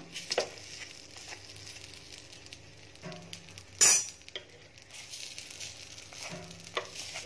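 Baati dough balls frying in a nonstick appe pan with a faint, steady sizzle, while a knife turning them clicks and scrapes against the pan; the loudest scrape comes about four seconds in.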